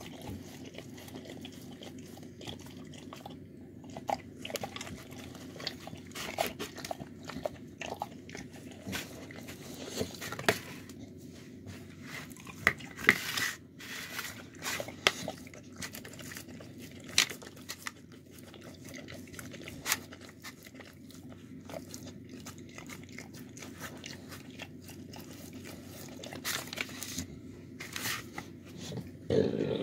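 A dog eating from a plastic tub: irregular crunching and chewing, with sharp crackles and clicks coming in uneven bursts.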